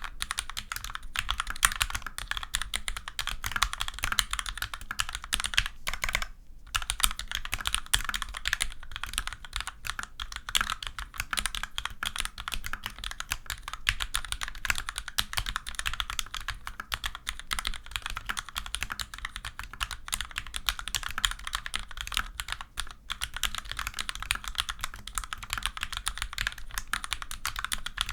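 Steady, fast typing on a Magicforce 68 mechanical keyboard with vintage Cherry MX Black linear switches, unlubricated, and low-profile doubleshot keycaps: a dense run of key clacks with a short pause about six seconds in and a brief one later on.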